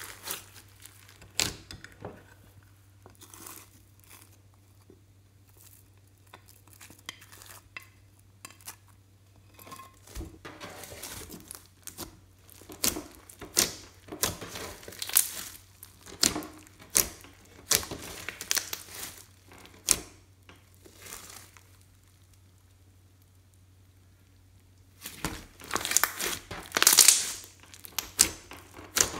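Hands kneading and pressing glossy slime full of glitter and sequins, giving irregular sticky crackles and pops with short quiet pauses. A denser, louder run of crackling comes near the end.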